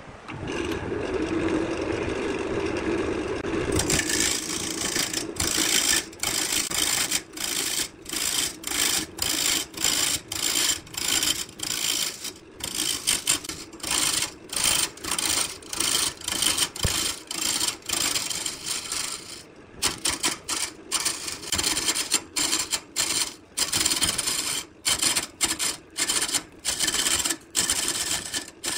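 Burt wood lathe spinning a wood-and-resin blank while a turning gouge cuts it: a steady motor hum under a hissing, scraping cutting noise. The cutting starts about four seconds in and keeps breaking off in short gaps, about once a second or more.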